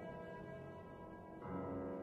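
Flute and piano playing a slow, sustained passage, the notes ringing with a bell-like resonance; a new note or chord comes in about one and a half seconds in.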